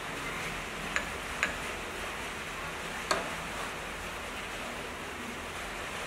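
Three light clinks of ice cubes against a glass bowl of juice, two close together and one a little later, over a steady hiss of background noise.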